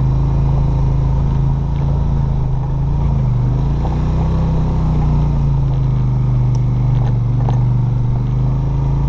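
ATV engine running steadily while driving a dirt woods trail. Its note dips about three seconds in and rises again a second or so later as the throttle eases and opens.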